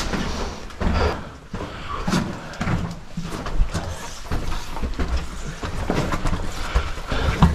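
Footsteps: boots knocking and scuffing irregularly on the rocky, gravelly floor of a cave passage.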